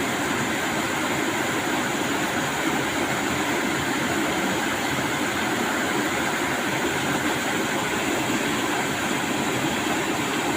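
Steady rushing of river water flowing over rocks, an even, unbroken noise.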